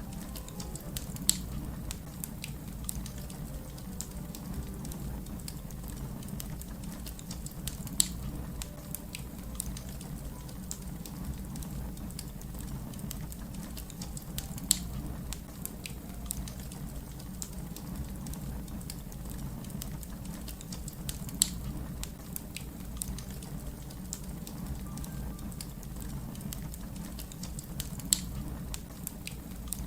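Wood fire crackling over a steady low rumble, with many small crackles and five loud, sharp pops spaced about six to seven seconds apart.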